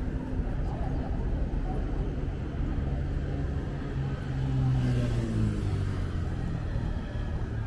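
A car passing close by on a city street: its engine note swells to its loudest a little past halfway and drops slightly in pitch as it goes by, over a steady low traffic rumble.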